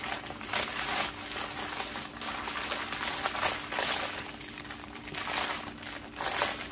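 Plastic packaging crinkling and rustling irregularly as small bags of diamond-painting drills are stuffed back into their pack.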